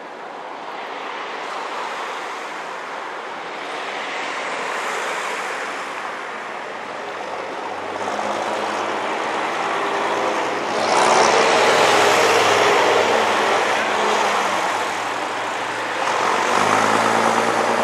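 A vintage single-deck bus approaching and driving past, its engine growing steadily louder and loudest about eleven seconds in. A car passes close near the end.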